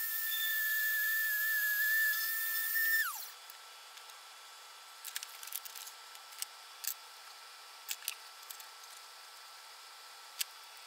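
Small drill press running with a steady high whine while boring into a white plastic skin-snap block, then switched off about three seconds in, its pitch falling as it winds down. After that come a few light clicks and taps.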